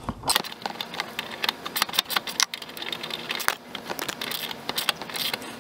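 Socket ratchet clicking in rapid, uneven runs as it turns the nut off a lawn tractor's tie-rod end.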